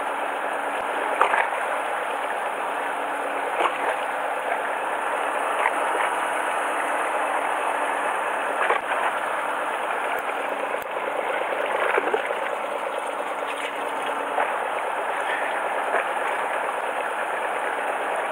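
Steady wash of sea water lapping against the hull of a drifting fishing boat, with a few brief louder slaps.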